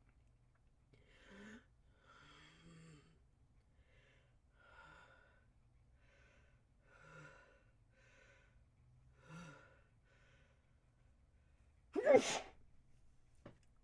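A person's harsh sneeze. A series of faint, breathy gasps comes first, then one loud sneeze near the end.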